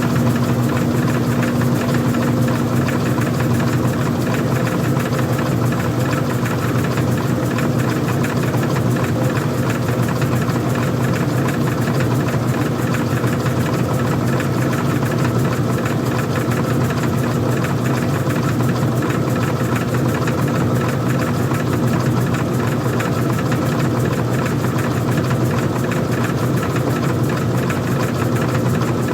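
Old-style front-loading washing machine running: a loud, steady machine hum with one constant tone throughout.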